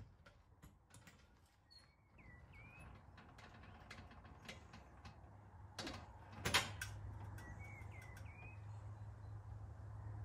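Scattered metallic clicks and knocks from hand tools working at a car wheel, the loudest two knocks about six seconds in. A bird chirps briefly twice, and a low steady hum builds in the second half.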